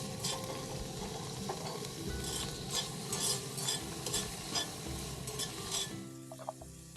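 Food stir-frying in a pan, sizzling steadily while a utensil scrapes and clicks against the pan again and again.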